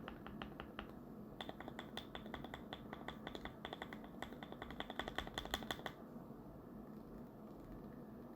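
Typing on a Keychron Q1 mechanical keyboard with lubed WS Aurora Pink switches and Akko ASA keycaps: fast, even keystrokes. They pause briefly about a second in, resume quicker and denser, and stop about six seconds in.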